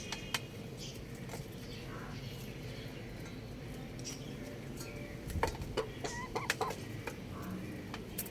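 Chickens making short, scattered clucks and chirps, with a cluster of sharp clicks and calls about five to seven seconds in, over a steady low background noise.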